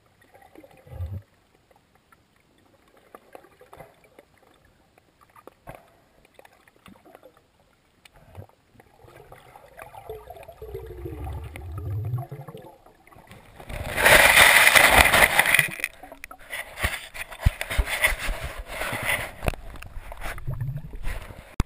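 Underwater sound picked up by a submerged camera: faint clicks and crackles, a low rising sound around the middle, then a loud rushing burst of water about two-thirds through, followed by dense crackling as the camera is moved.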